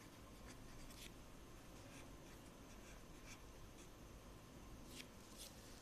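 Faint scratching of a pen writing on lined notebook paper, with a few sharper strokes about a second in and near the end.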